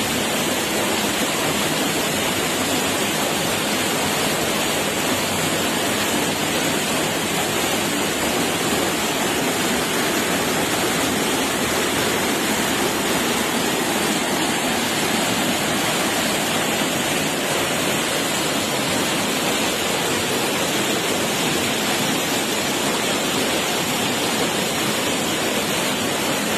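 Waterfall: falling water rushing in a steady, even roar.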